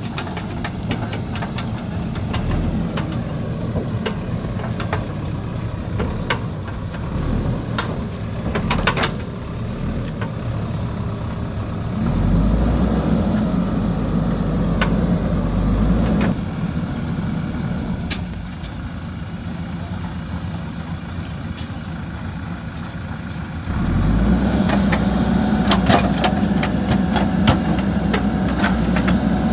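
JCB backhoe loader's diesel engine running. It grows louder under load for a few seconds about twelve seconds in, and again near the end, with scattered sharp knocks.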